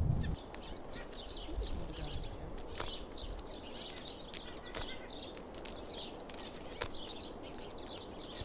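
Small songbirds, chickadees and white-breasted nuthatches, calling with many short high chirps, with a few sharp clicks scattered through.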